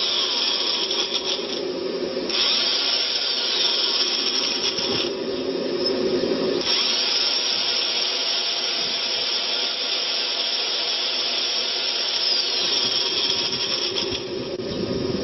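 Corded electric drill with a hole saw bit running on inverter power, triggered in three runs, the last and longest lasting about seven seconds, each spinning up and down. The inverter's cooling fan whirs steadily underneath: very noisy.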